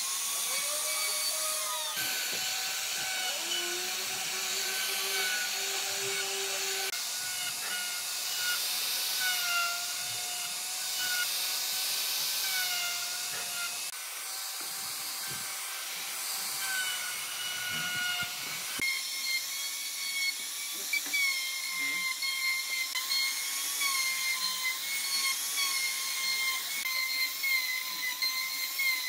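Electric plunge router running at a steady high whine with a hiss of cutting as its bit surfaces a wooden slab. The pitch of the whine jumps abruptly several times.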